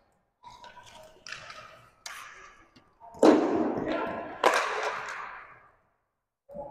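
Roller hockey play echoing around an arena: sticks and puck knocking on the concrete floor and boards. Five sharp knocks about a second apart, the two loudest about three and four and a half seconds in.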